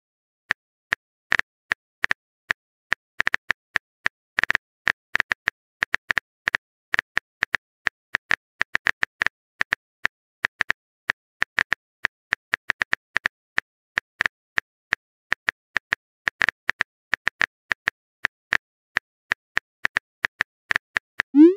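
Phone keyboard tap clicks as a text message is typed out, short sharp ticks at several a second, unevenly spaced. Right at the end a rising message-sent blip begins.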